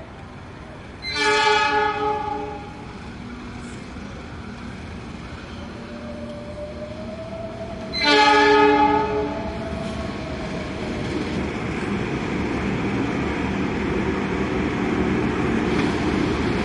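Train locomotive horn sounding two blasts about seven seconds apart, each about a second and a half long, followed by the rumble of the train growing steadily louder as it approaches.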